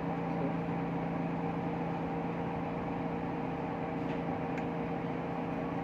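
Steady machinery hum with several constant low tones, with two or three faint light clicks near the end as small metal parts are handled.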